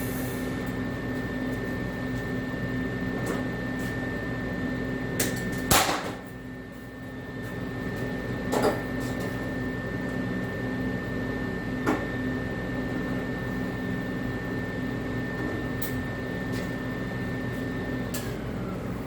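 A small electric motor humming steadily with a high whine, its pitch falling away near the end as it winds down. A few sharp knocks break in, the loudest about six seconds in.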